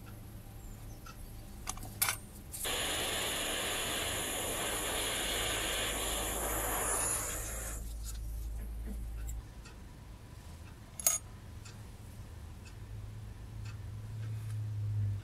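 Small gas torch lit with a click, its flame hissing steadily for about five seconds while soldering a small brass door frame, then shut off abruptly. A single sharp click comes a few seconds later.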